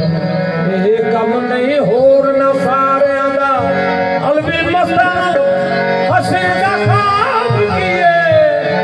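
Punjabi Sufi devotional song: a male voice sings long, ornamented lines over sustained harmonium chords.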